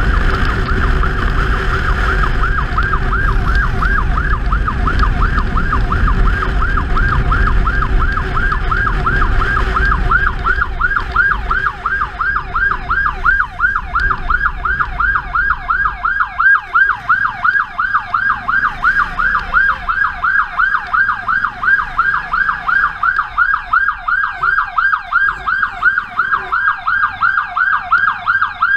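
Electronic yelp siren of a 112 emergency ambulance motorcycle, a fast repeating rising wail at a few cycles a second, heard throughout. Beneath it the low rumble of the motorcycle's engine and the wind of riding is strong at first and drops away about eleven seconds in as the bike slows into traffic.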